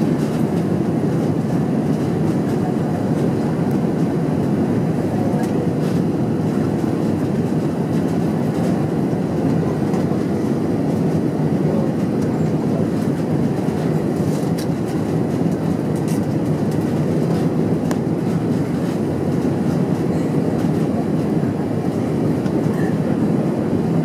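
Steady rumble heard inside the cabin of an Airbus A320 as it rolls down the runway on landing, with the ground spoilers raised to slow it; wheel and airflow noise hold at an even level throughout.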